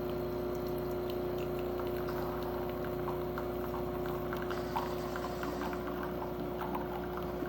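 Nesskoko 20-bar espresso machine's pump humming steadily while brewing, with faint trickling and ticking of coffee running into the cup. It cuts off abruptly near the end.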